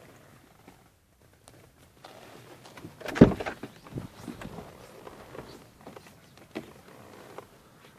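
Peugeot 308 door handle and its decorative trim being worked by hand: a firm thump about three seconds in, among light clicks and rattles.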